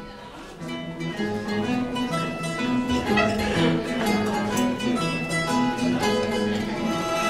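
A live rondalla of guitars and bandurrias playing a jota, an instrumental passage of quick plucked notes and strummed chords.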